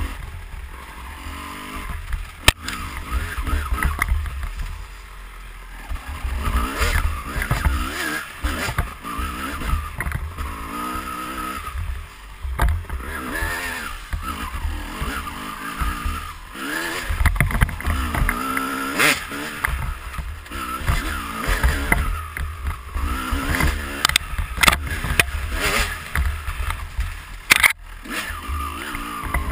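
2004 Kawasaki KX250's single-cylinder two-stroke engine revving up and down as the dirt bike is ridden over a trail, heard from a helmet-mounted camera. Sharp knocks come here and there, the loudest about two and a half seconds in and near the end.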